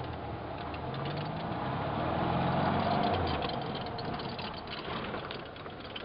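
A small vehicle's engine running, growing louder and rising slightly in pitch to a peak about three seconds in, then fading away.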